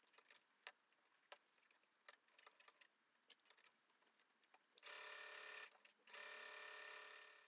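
Brother electric sewing machine stitching a seam in two short runs, the first about five seconds in and the second, after a brief stop, carrying on to near the end. Before the sewing starts there are a few light clicks.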